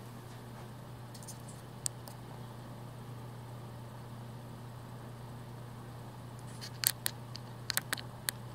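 Steady low hum with a single light click about two seconds in and a short run of light clicks and taps near the end.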